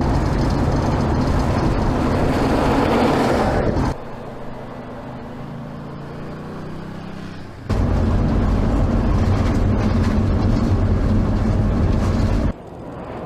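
Sports car engine running loud under load, broken by abrupt cuts between clips: loud for about four seconds, then quieter with a slowly rising engine note, then loud again from about eight seconds in until a sudden drop near the end.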